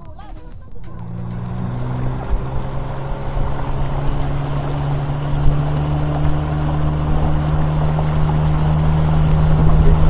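Boat's outboard motor opening up about a second in, its pitch stepping up as the boat gathers speed, then running steadily under way with the rush of water along the hull.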